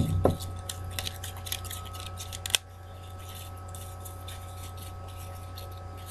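Grosgrain ribbon being handled and pressed into a bow, with a run of small clicks and rustles ending in one sharp click about two and a half seconds in. After that only a steady low hum is left.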